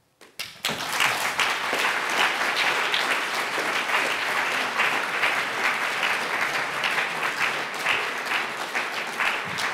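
An audience applauding, starting suddenly about half a second in and going on at an even level.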